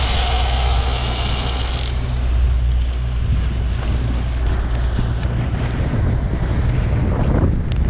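Wind buffeting the microphone aboard a small aluminium boat at sea, over a steady low hum and the wash of water. A high hissing rush stops suddenly about two seconds in.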